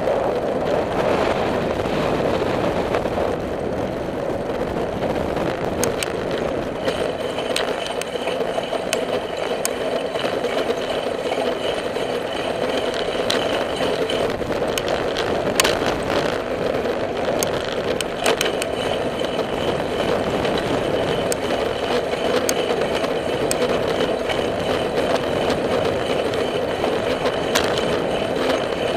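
Steady rolling noise of a bicycle riding on an asphalt trail, with scattered sharp clicks and rattles over the constant hum.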